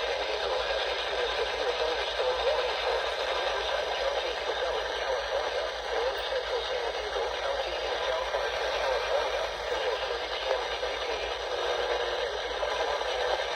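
Steady radio static from a receiver's speaker: an even hiss, with a faint low hum underneath.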